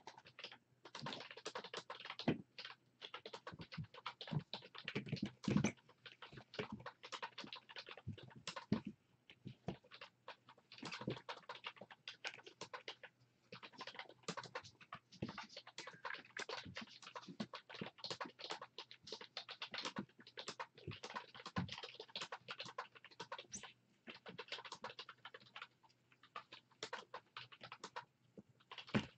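Typing on a computer keyboard: rapid, irregular key clicks with short pauses between runs.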